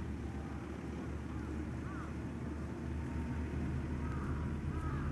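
Outdoor shoreline ambience: a steady low rumble with birds giving short, arched calls, once about two seconds in and several in quick succession near the end.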